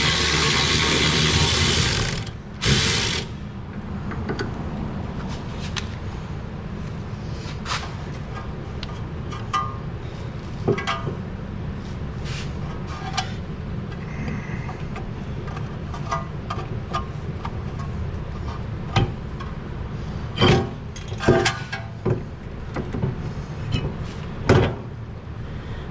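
Hand tools working on a car's rear brake and hub assembly: scattered metallic clicks and knocks over a steady low hum, with a cluster of louder knocks near the end. A loud rushing noise cuts off about two seconds in.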